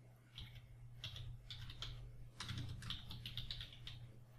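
Typing on a computer keyboard: a quick run of key clicks, densest about halfway through, over a low steady hum.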